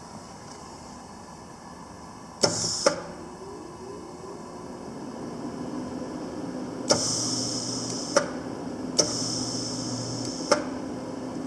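Panasonic YD-160SL7 semi-automatic welder worked in three short bursts, one brief and two longer. Each burst opens and closes with a sharp click and carries a hiss and a low hum while it runs. The machine's steady hum sits underneath.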